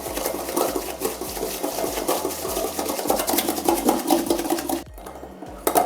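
A hand beater whipping instant coffee, sugar and water for dalgona coffee, clicking rapidly and steadily against the side of the container. The clicking breaks off briefly near the end.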